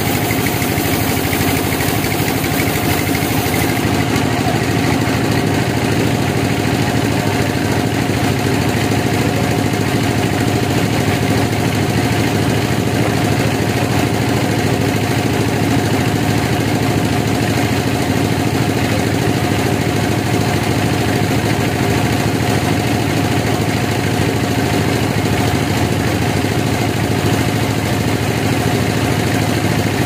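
Band sawmill running steadily: a constant machine hum with a steady high tone over it, unchanging throughout.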